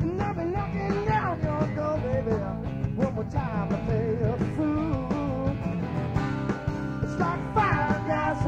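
Rock band playing live: drums, bass, and acoustic and electric guitars, with a lead melody on top that bends and wavers in pitch.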